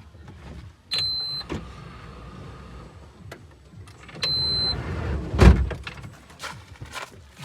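Two short, steady, high electronic beeps about three seconds apart, then a heavy thump, among small knocks and handling sounds.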